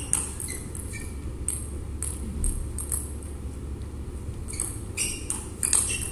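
Table tennis balls clicking off bats and tables, sharp irregular clicks one to three a second that come thicker near the end, over a steady low rumble.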